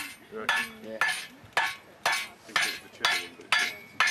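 Blacksmith's hammer striking hot steel on an anvil in a steady rhythm of about two ringing blows a second, some nine blows in all.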